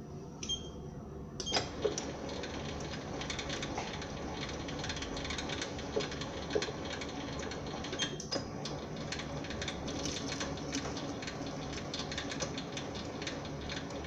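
SIEG SC4 bench lathe starting about a second and a half in and then running, with a fast, dense clicking clatter over a low steady hum, as its threading tool takes a pass along a POM plastic rod.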